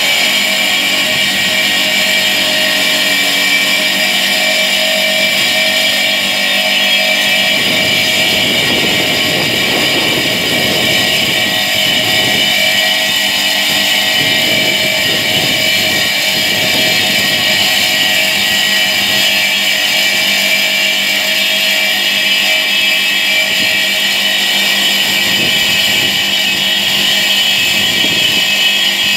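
Bridge-type marble cutting saw running steadily with a high whine, its circular blade cutting through a marble slab. A rougher, lower grinding comes and goes from about a quarter of the way in to past the middle, and again near the end.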